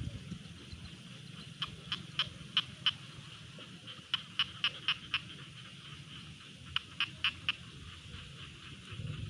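A frog calling from the rice paddy: short, high clicking notes in quick runs of four or five, three runs a couple of seconds apart.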